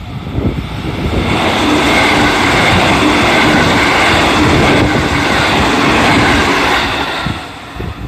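313 series electric multiple unit passing close by: wheel and running noise builds about a second in, stays loud as the cars go past, and falls away near the end as the train moves off.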